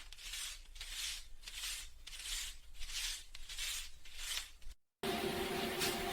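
Paper banknotes being handled, giving a regular run of about eight crisp papery swishes, roughly two a second. They cut off abruptly near the end, and a different steady hum with rustling noise takes over.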